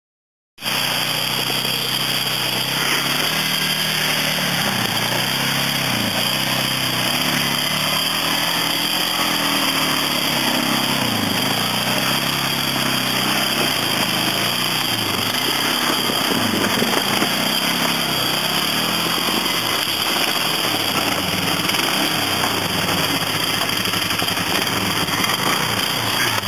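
Polaris ATV engine labouring up a steep rocky climb, its pitch rising and falling as the throttle is worked, cutting in about half a second in.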